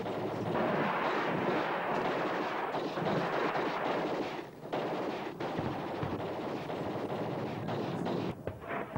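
Rapid automatic gunfire, a dense crackle of many shots running on with short lulls about four and a half and eight and a half seconds in.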